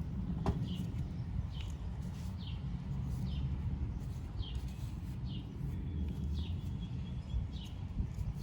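A bird chirping over and over, a short call roughly every three-quarters of a second, over a low rumble, with one sharp click about half a second in.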